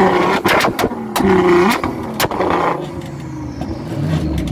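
Nissan GT-R R35's twin-turbo V6 revved in short blips, with sharp exhaust pops and cracks between them. It drops back to a quieter idle a little after halfway, with a small rev near the end.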